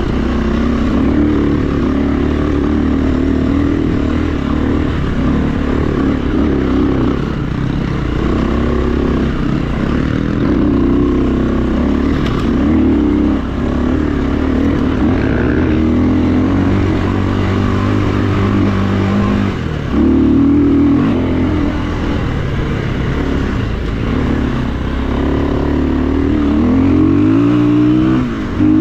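KTM enduro dirt bike's engine running under load, its revs rising and falling as the throttle is worked, with short lifts off the throttle a couple of times and a steady climb in revs near the end.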